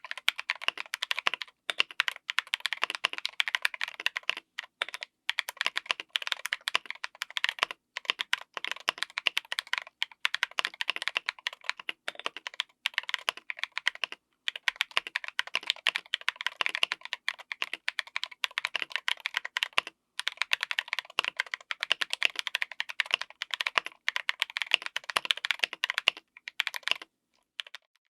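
Fast typing on a mechanical keyboard with stock Durock Mamba linear switches on an FR4 plate: a dense run of keystrokes with brief pauses every few seconds.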